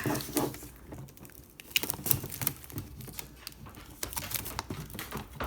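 Fingernail picking and scratching at the plastic wrap on a Pokémon card package, an irregular scatter of small clicks and taps.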